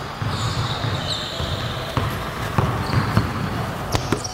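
A basketball being dribbled on a hardwood gym floor, a few bounces mostly in the second half, with short sneaker squeaks on the floor.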